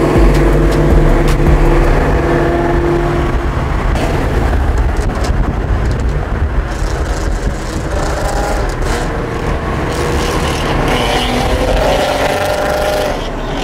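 Muscle cars cruising in a group at highway speed: a steady V8 exhaust drone with road and wind noise, heard from inside a moving car.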